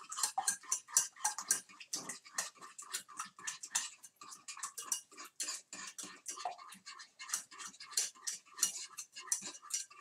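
A utensil stirring eggs in a frying pan, scraping and tapping against the pan several times a second without a break.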